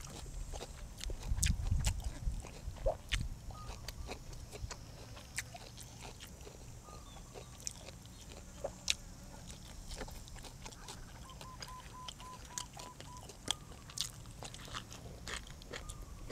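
A person chewing and crunching food during a mukbang meal, with scattered sharp mouth and utensil clicks and a louder stretch of chewing about a second in.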